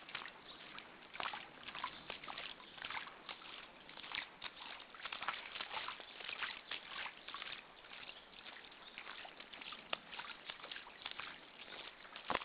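Rain falling, with a dense, irregular patter of drops and water trickling.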